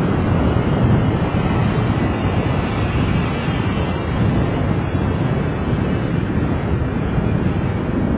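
Steady wind rumble on the microphone of a camera moving along a city street, mixed with road and traffic noise.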